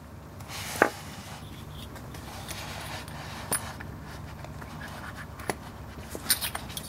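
Handling noises from a small stainless steel pipe tool and a Leica M3 camera: soft rubbing and a few sharp light clicks, the loudest about a second in and a small cluster near the end.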